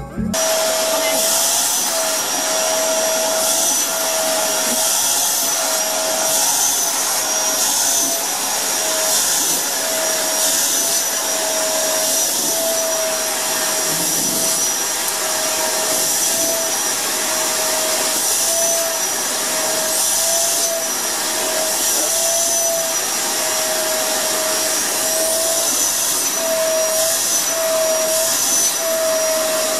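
Dirt Devil vacuum cleaner running steadily as its nozzle is drawn through a cat's fur. It starts abruptly and has a held motor whine that wavers slightly in pitch about once a second.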